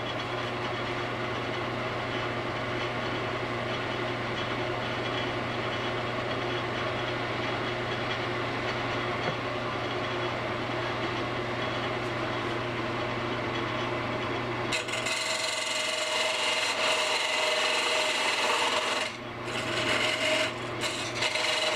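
Wood lathe running with a steady motor hum while a hand-held turning tool cuts the spinning wood, a continuous scraping hiss. About fifteen seconds in the cut turns brighter and harsher, with two short breaks where the tool comes off the wood.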